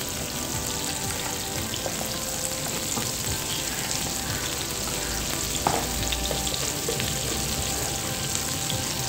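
Butter and oil sizzling steadily in a nonstick frying pan, with one sharp click about five and a half seconds in.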